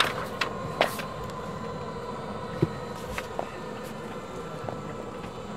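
Steady hum and hiss inside a parked airliner's cabin, with a few sharp clicks and knocks scattered through it.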